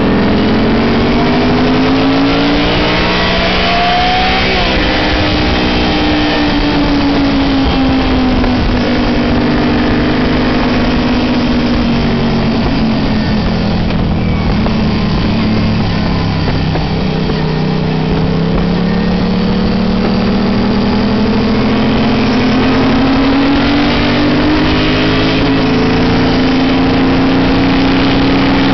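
Sportbike engine heard from on board at road speed, its pitch rising and falling as the throttle is worked through a series of bends, with a sudden step in pitch about four seconds in and again near the end, over a steady rush of wind.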